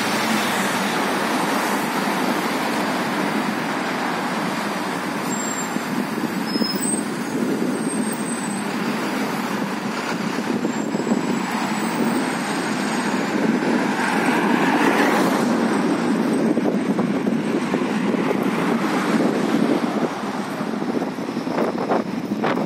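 Steady street traffic noise from cars on a city road, with a louder swell about two-thirds of the way through as a vehicle passes.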